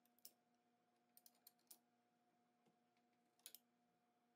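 Near silence with a few faint, small metallic clicks, two of them close together near the end: the blades and chippers of an Amana Tool dado stack being fitted onto a table saw arbor.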